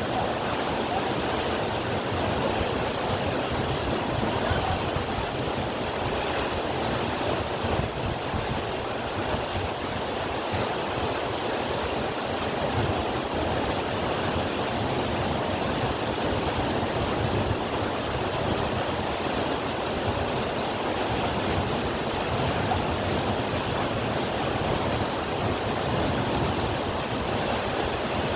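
Waterfall rushing steadily: an even, unbroken sound of falling water.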